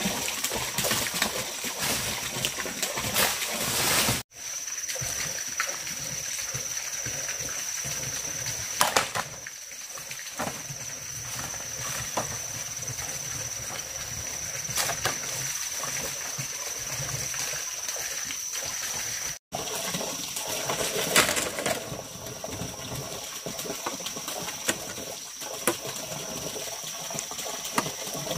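Water splashing and trickling, with scattered light knocks and clicks. A steady high-pitched whine runs through the middle stretch, starting and stopping abruptly at two sudden breaks.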